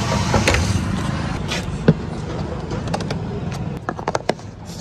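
A motor runs with a steady low hum, with a single sharp click about two seconds in. Near the end the hum drops away and small clicks follow as a metal cap is screwed onto a plastic jerry can.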